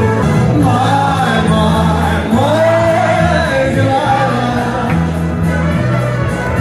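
A song: a singer performing over a backing track with a steady bass line, heard loud in a large room.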